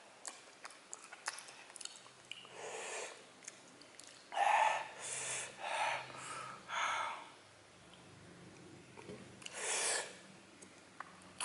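A man eating very spicy chili-coated chicken feet (ceker setan) by hand. Small wet chewing and sucking clicks are followed by four loud, breathy huffs through the mouth between about four and seven seconds in, and one more just before ten seconds.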